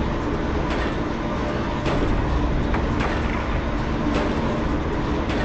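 Low, steady rumbling drone with a faint hum. Soft pulses come roughly once a second, an ominous ambient bed of the kind used in horror sound design.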